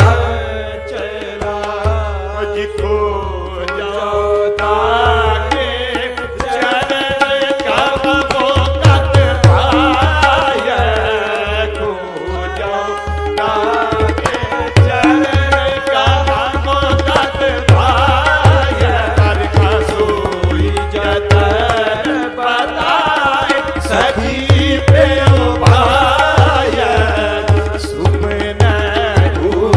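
Sikh shabad kirtan: a man sings a slow, melismatic devotional melody over a steady held drone note, with tabla keeping a beat of deep bass strokes that drops out briefly twice.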